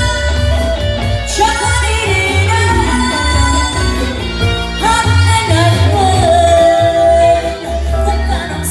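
Band music: a singer holding long, gliding notes over guitar and a steady bass line.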